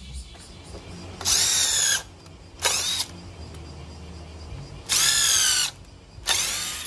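Green Bosch cordless drill/driver drilling into pine boards in four short runs, each ending with a falling whine as the motor spins down. The second and fourth runs are shorter than the others.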